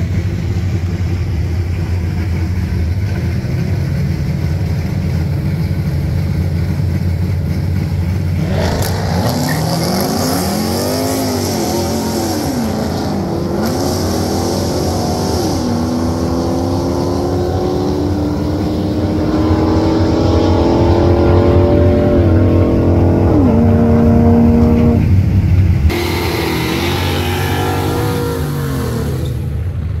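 Ram pickup's engine running at a low rumble on the drag strip, then launching about a third of the way in: the revs climb and drop back several times as it shifts up through the gears. Near the end the sound changes abruptly to a Ram pickup doing a burnout on drag slicks, engine held at high revs as the rear tyres spin.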